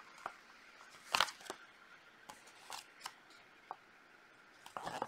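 Folded paper instruction leaflet rustling as it is unfolded and handled: scattered soft crinkles and taps, one louder crinkle about a second in and busier handling near the end.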